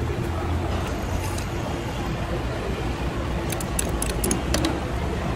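Steady rumble of road traffic. About three and a half seconds in, a quick run of light clicks from chopsticks and a plastic spoon against the soup bowl.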